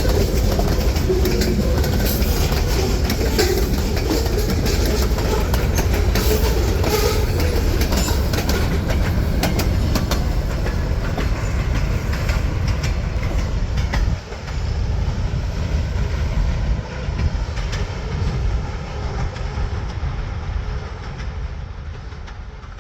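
Freight train cars rolling past with a heavy low rumble and rapid clicking of wheels over the rail joints. The sound drops somewhat about two-thirds of the way through and tails off near the end.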